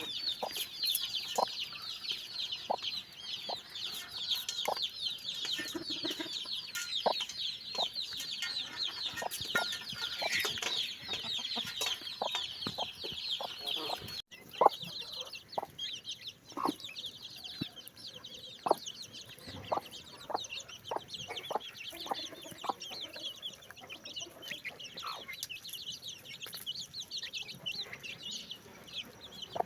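A crowd of baby chicks peeping nonstop in short, high, falling notes, with occasional lower, shorter clucks mixed in. About halfway through there is a sudden break, after which the peeping goes on quieter.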